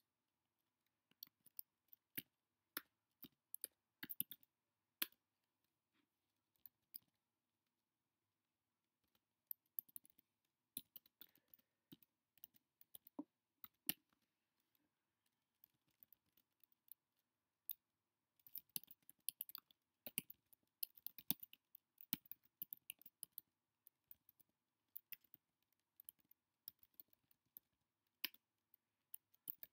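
Typing on a computer keyboard: faint key clicks in irregular bursts, stopping for a few seconds about a third of the way in, with a dense flurry past the middle.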